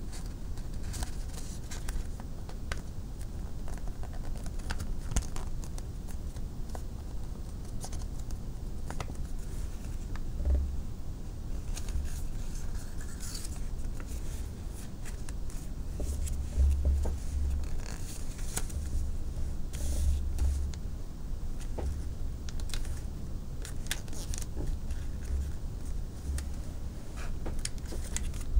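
Origami paper being folded and creased by hand: scattered soft crinkles, scrapes and ticks of paper and fingertips. A steady low rumble runs underneath, with a few dull low bumps.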